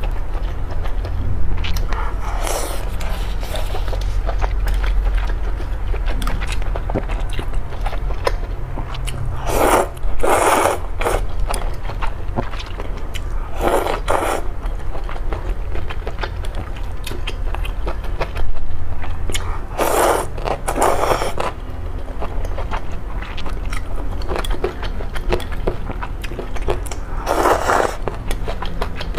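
Close-miked eating: steady chewing and wet mouth sounds, broken by about five loud slurps of noodles in broth, each lasting about a second. A low steady hum runs underneath.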